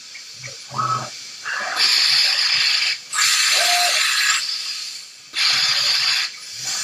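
Three bursts of loud hissing from a 5-axis CNC machining centre during cutting, each lasting about a second, with gaps between them. There is a short clunk about a second in.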